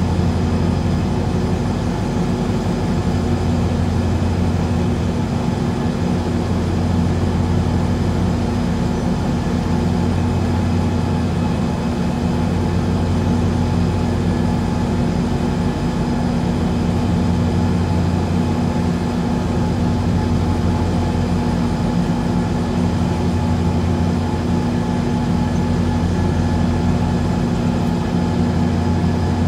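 Towboat's diesel engines running at a steady low drone, with a constant hum.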